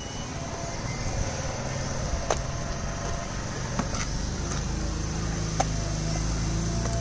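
A motor vehicle's engine running nearby, a low hum that grows louder in the second half, with a few sharp clicks scattered through it.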